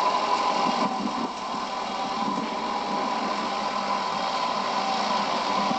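Vintage Doe tractor's engine running steadily while ploughing, with a constant whine over the engine note.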